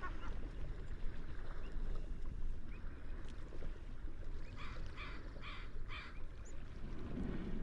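Seagulls calling over the steady wash of the sea: a quick run of three short calls about five seconds in, with a few fainter cries around it.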